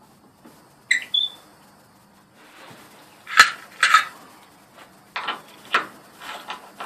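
A handful of sharp metallic clinks and knocks as a hinge and hand tools are handled against the oak gate, the first about a second in with a short ring, the loudest a couple of seconds later.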